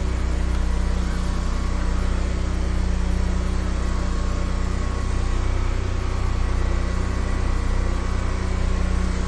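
High-pressure sewer jetter running steadily, its engine and pump giving a constant low drone with an unchanging pitch, while the jetting hose clears a blocked drain line.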